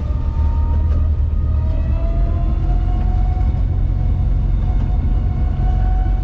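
Inside the cab of a Selis Balis electric three-wheeler driving in the rain: a steady low rumble of the ride, with a faint electric-motor whine that rises in pitch as the vehicle speeds up about two seconds in, then holds steady.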